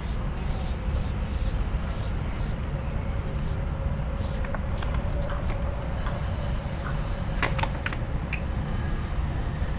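Aerosol spray paint can hissing in short bursts as letters are outlined, then one longer spray of about two seconds, with a few sharp clicks near its end. A steady low rumble runs underneath.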